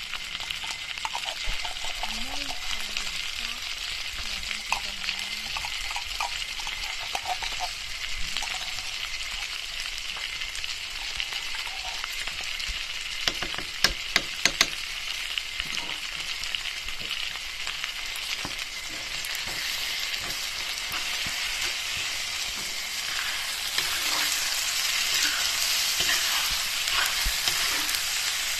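Sliced hot dogs and ground meat sizzling in a wok, a steady frying hiss. About halfway through there is a quick run of sharp clicks, and near the end the sizzle grows louder as a metal spatula stirs the mix.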